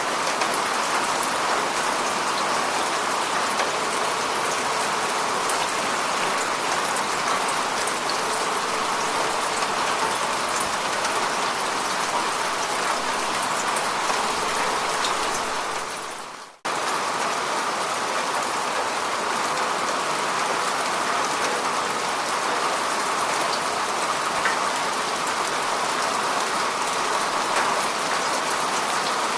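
Steady rain falling: a dense, even hiss of drops with many small ticks of individual raindrops. About halfway through it fades out for a moment and cuts straight back in.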